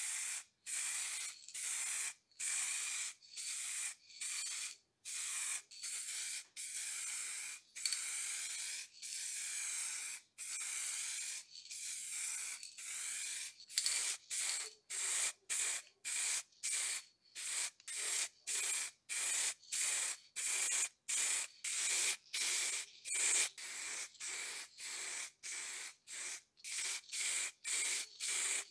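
Spray paint hissing from the nozzle in repeated short bursts as metal parts are coated. The bursts are about a second long at first, then become shorter and quicker, about two a second, from about halfway through.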